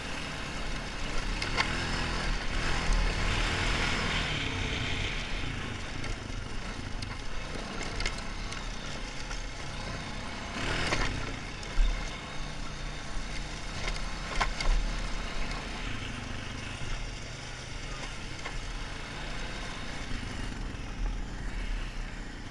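Honda 450 ATV's single-cylinder four-stroke engine running as it is ridden over rough ground, heard from a helmet-mounted camera, with several short knocks along the way, the sharpest about twelve seconds in.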